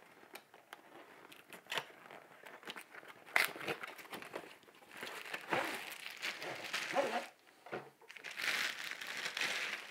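Handling and opening of a long cardboard box: rustling, scraping and small clicks, then plastic wrapping crinkling as a bagged light stand is pulled out near the end.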